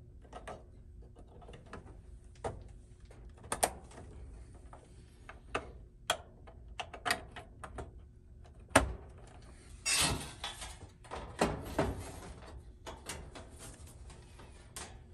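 Plastic wire-harness connectors being pushed and clicked onto a new electronic oven control board, with the wires rustling as they are handled: scattered small clicks and knocks, the sharpest snap a little under nine seconds in.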